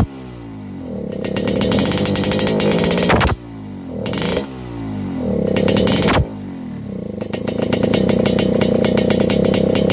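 Yamaha RX-King's 135cc single-cylinder two-stroke engine, set rich, revved in repeated throttle blips. The revs climb and fall away sharply three times, then are held steady at high revs from about seven seconds in.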